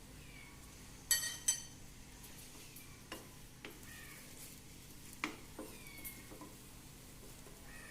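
Metal utensil clinking twice against a frying pan about a second in, then several lighter taps and scrapes, over a faint sizzle of egg batter frying in ghee.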